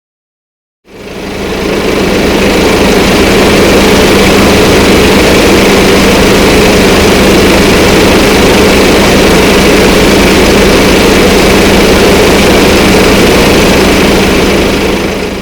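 Diesel generator set running at steady speed: a loud, even engine drone that fades in about a second in and holds unchanged until it cuts off.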